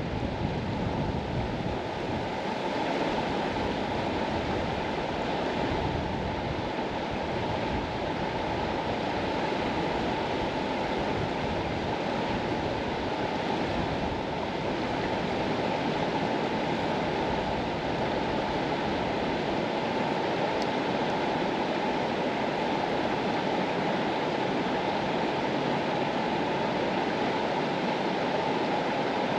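Mountain river flowing: a steady, unbroken rush of water, fullest in its lower, deeper part.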